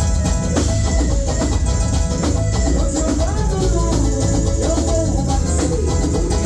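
Live band playing amplified music: a steady drum beat and heavy bass under sustained pitched instruments, with continuous rhythmic percussion.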